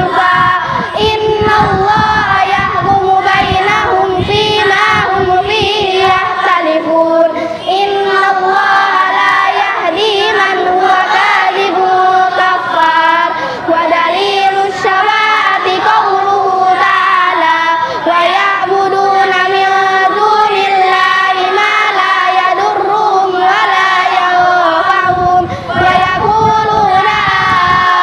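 A group of children chanting an Arabic religious text in unison, a melodic group recitation with long held notes.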